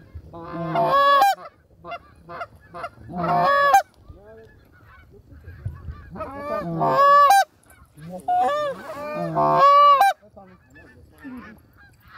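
Canada goose honks and clucks in four loud strings of rapid calls, with fainter calls in between.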